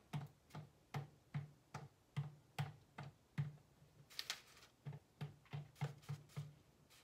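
Silicone candy molds filled with melted chocolate being tapped again and again against a countertop to knock the air bubbles out, a run of dull knocks about two or three a second.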